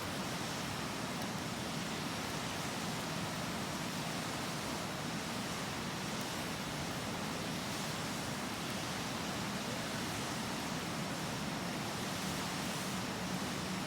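Steady rushing of a river flowing close by, an even noise that does not change.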